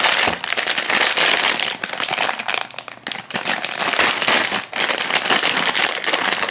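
Metallic foil blind bag crinkling and crackling loudly as hands tear it open and pull it apart, a dense run of sharp crackles with a brief lull about three seconds in.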